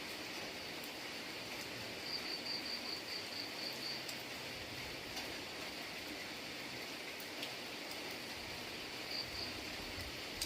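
Steady rain falling, with scattered drops ticking. An insect gives a quick run of high chirps about two seconds in, and two more near the end.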